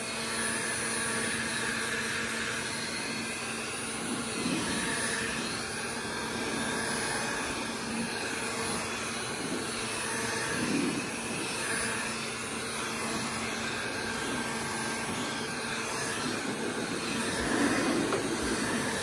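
Heat gun running steadily, its fan blowing hot air with a constant hum, to dry wet, freshly scrubbed dashboard plastic.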